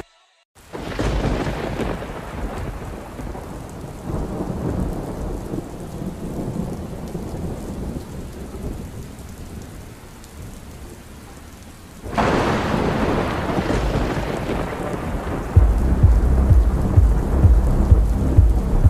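Rain with rolling thunder: a steady hiss of rain over low rumbles, swelling into a louder thunderclap about twelve seconds in, then a heavy low pulsing rumble near the end.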